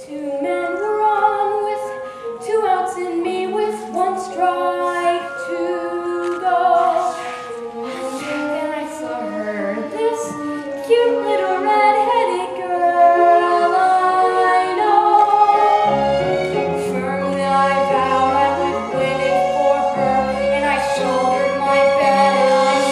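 A stage-musical cast singing together as an ensemble with accompaniment. Low bass notes join in about two-thirds of the way through.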